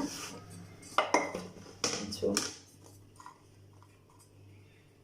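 Small cooking pot being handled, with several sharp clinks and knocks of kitchenware in the first half, then only faint ticks.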